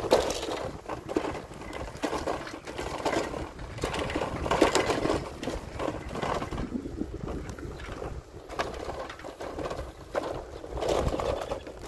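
Bicycle rolling along a concrete road, rattling and clattering unevenly as it goes.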